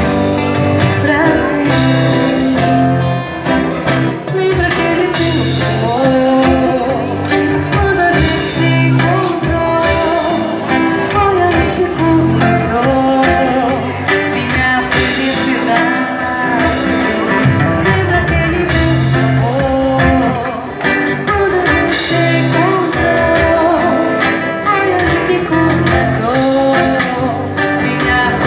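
Live band: a woman singing into a microphone over strummed acoustic guitars and drums.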